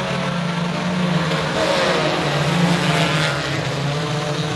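A pack of U-car class dirt-track race cars accelerating at the green-flag start, their engines revving together as they pass. The sound swells from about a second in and eases off after three seconds.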